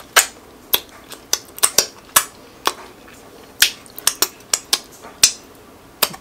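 Close-miked mouth sounds of fingers being sucked and licked clean of sauce: a quick, irregular series of sharp wet smacks and pops from the lips.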